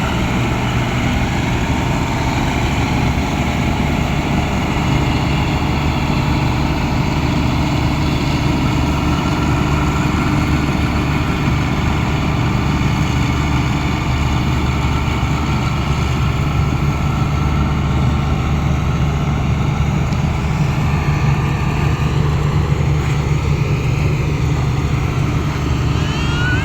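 Engine of a rice-paddy machine running steadily, a constant low hum with no change in speed.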